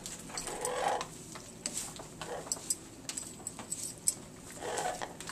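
Blue-fronted Amazon parrot bathing in a small stainless-steel cup: irregular light clicks and clinks of beak and feet against the metal, mixed with splashing water and the flutter of wet wings.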